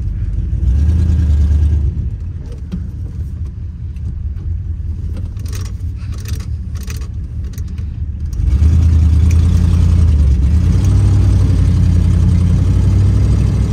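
The 1957 Ford Fairlane's 292 Y-block V8 is running under way, heard from inside the cabin. It eases off for a few seconds, with a few light clicks in the middle, then gets louder about eight seconds in as it pulls harder. The engine is still cold, and the owner thinks it probably needs a little tuning.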